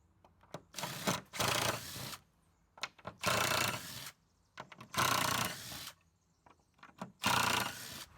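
Hand tool rubbing or scraping against wood in four separate strokes, each about a second long and starting strong before trailing off.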